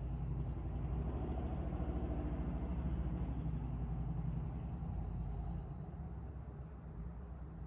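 A steady low rumble, easing a little after about five and a half seconds, with two long, high, even-pitched tones of about two seconds each, one at the start and one just past halfway.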